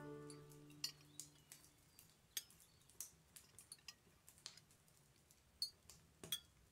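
A music chord dying away at the start. Then, in near silence, faint irregular clicks and clinks of cutlery on plates at a meal, some with a short bright ring.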